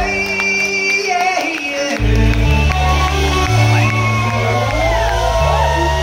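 Live rock band playing through a PA in a large hall, with electric guitar, bass and drums under shouted and sung vocals. The low bass drops out at the start and comes back in about two seconds in.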